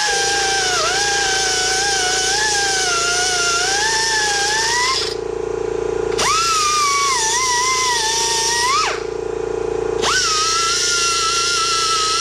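Handheld grinder cutting into a steel seat bracket, its high whine wavering and dipping in pitch as the wheel bites the metal. It stops about five seconds in, spins back up a second later, stops again, and spins up once more near the end. A steady lower hum runs underneath.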